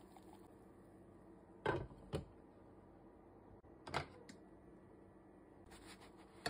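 Cookware knocks: a slotted turner and a glass lid tapping against a non-stick frying pan. There are two close knocks about two seconds in, another about four seconds in, and one at the end, over a faint steady hum.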